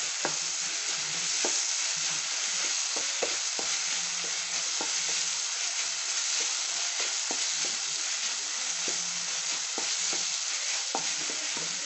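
Chopped vegetables sizzling in oil in a ceramic-coated frying pan as a wooden spatula stirs them. Frequent short scrapes and taps of the spatula against the pan sound over a steady sizzle.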